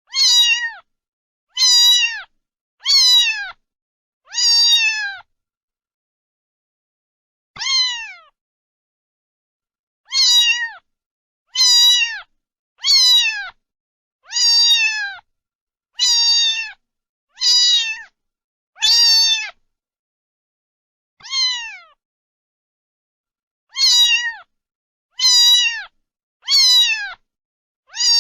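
A domestic cat meowing again and again, about seventeen short calls, each falling in pitch, with complete silence between them.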